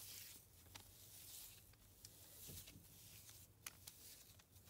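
Near silence with faint soft rustling and a few light ticks as fingers pull apart a squishy toy's airy foam filling.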